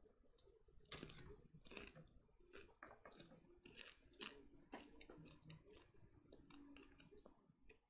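Faint, irregular crunching of someone chewing cancha, toasted corn kernels.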